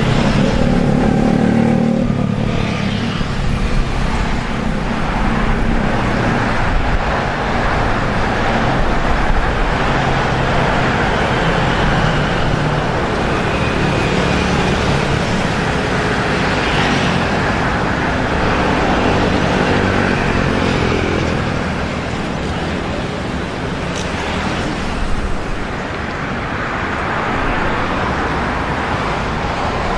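Road traffic noise: engines of passing cars and motorcycles running over a steady rush of road noise.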